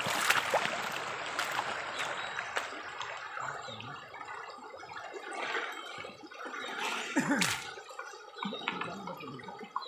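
River water splashing and pouring over a wooden gold sluice box, loudest in the first few seconds and easing off later, with scattered small clicks and knocks.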